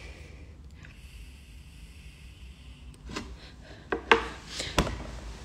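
A person drawing on a disposable vape: a soft, steady hiss of air through the device for about two and a half seconds. Then come a few small clicks and a breathy exhale of vapour near the end.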